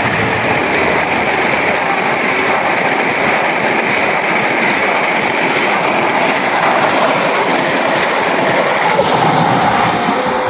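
A train passing close by at speed: a loud, steady rush of wheels running on the rails.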